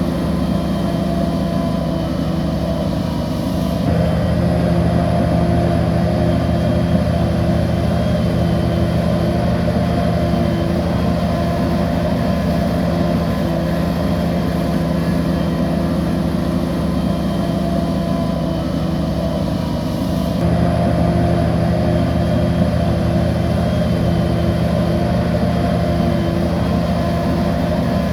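A bulldozer's heavy diesel engine runs steadily under load, a deep, even drone. Its level and tone shift abruptly about four seconds in and again about twenty seconds in.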